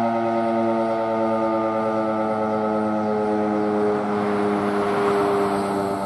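Federal Sign & Signal Model 5 three-phase fire siren sounding loudly during its Attack test signal, its several tones held near-steady with small shifts in pitch. The owner believes the siren is running under-powered.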